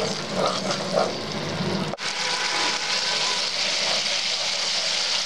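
Masala paste and fried onion sizzling in hot oil in a non-stick pan, stirred with a spatula. The paste is being fried until the oil separates from it. The sizzle becomes an even, steady hiss after about two seconds.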